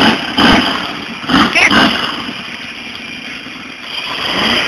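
V8 pickup truck engine running, revving up with a rising pitch near the end, after several short loud bursts in the first two seconds.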